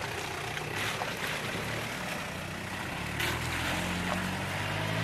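Toyota Land Cruiser Prado's diesel engine running slowly as its tyres churn and splash through a shallow, rocky stream, with a few sharper splashes. The engine note grows louder near the end as the truck passes close.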